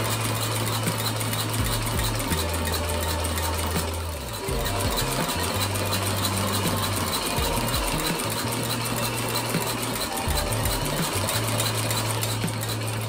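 Leather patcher sewing machine stitching through a suede loafer's upper, its needle running in a fast, steady rattle with a brief slowdown about four seconds in.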